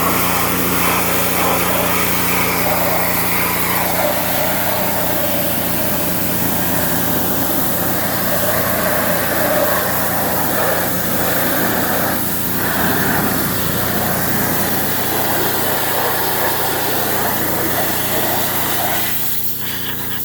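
Pressure washer running steadily, its water jet hissing as it blasts packed-in dirt off a side-by-side UTV. The spray eases off near the end while the machine keeps running.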